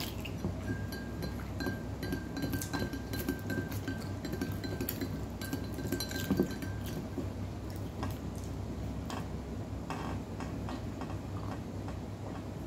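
Close-up eating sounds: pieces of dry, tough Arabic flatbread (kubos) being torn and chewed, with scattered clicks. A spoon clinks against a glass jar, the loudest click about six seconds in.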